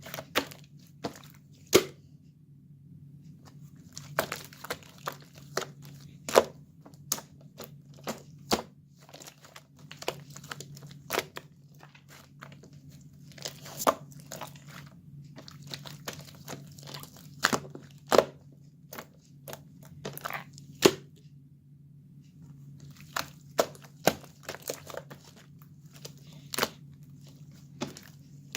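Purple slime being worked by hand, giving irregular sharp pops and crackles, sometimes several in quick succession, over a low steady hum.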